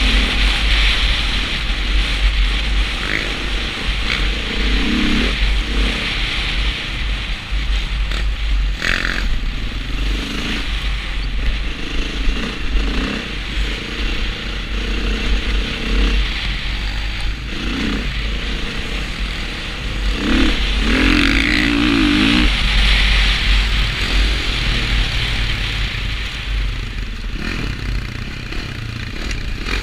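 Dirt bike engine under way, its revs rising and falling on a rough, muddy track, heard from a helmet camera with a constant low rumble of wind buffeting the microphone.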